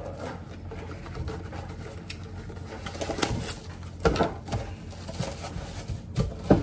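Plastic cling wrap pulled out, torn off and pressed over a mixing bowl: crinkling and rustling, with several sharp crackles in the second half.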